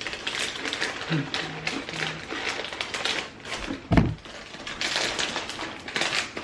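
Crunching and chewing of thin, crisp roasted onion pretzel crisps close to the microphone, an irregular run of sharp crackles. A single dull thump about four seconds in.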